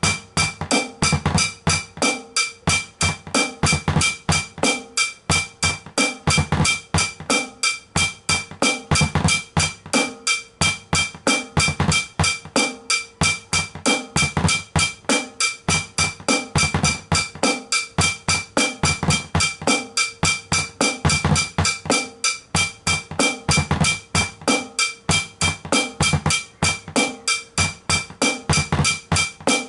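Compact drum kit played in a fast, steady groove: an even stream of strokes, about five a second, on a towel-muffled snare, over low bass drum beats played with a double pedal. A steady high ring sits over the whole pattern.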